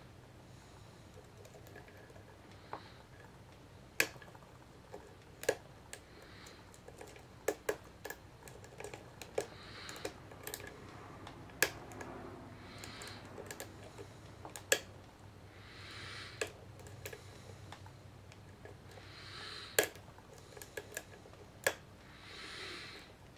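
Lock-picking tools working in the keyway of a Master Lock 570 padlock: irregular sharp metal clicks, some close together and some several seconds apart, with softer scraping in between.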